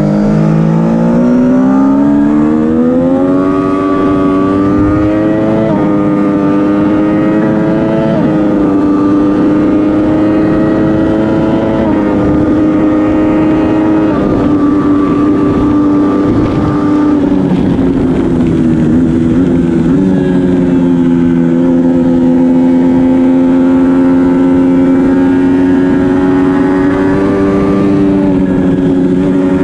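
2012 Triumph Daytona 675R's three-cylinder engine at full race pace: revs climb with about three quick upshifts in the first twelve seconds, dip briefly past the middle, then hold high and steady through a long corner.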